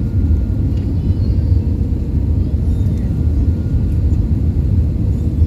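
Airbus A320 cabin noise on final approach: a steady, loud low rumble of engines and airflow heard from inside the cabin.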